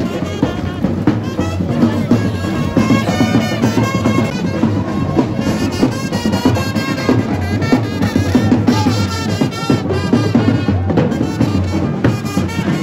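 Music with drums.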